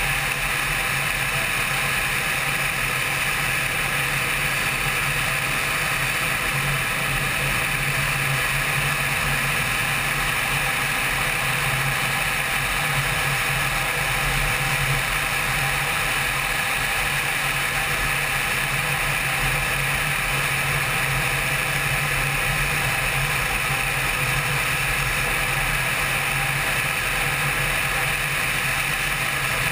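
Honda CBR600 inline-four engine running at a steady cruising speed, with wind rushing past, as picked up by a helmet-mounted camera. The engine note and the wind hold constant, with no revving up or down.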